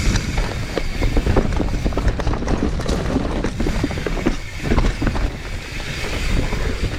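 Mountain bike rolling down a steep dirt trail: tyres grinding over loose, loamy soil, with the bike rattling and knocking over rough ground, many quick clicks and knocks, and wind rumbling on the microphone.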